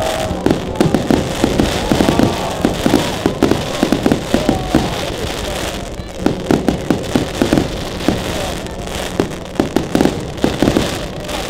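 Fireworks display: dense rapid crackling pops and bangs from shells bursting overhead, with a brief lull about six seconds in. A few short whistles sound in the first half.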